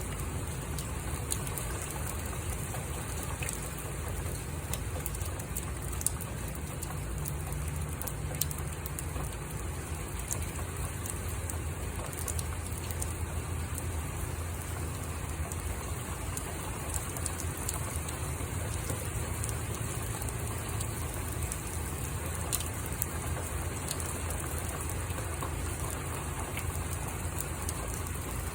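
Steady rain falling, with scattered sharp drop taps and a low rumble underneath.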